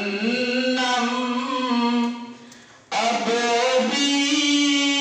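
A man's solo voice reciting a naat, holding long melodic notes. One phrase ends a little after two seconds in, and the next begins about a second later.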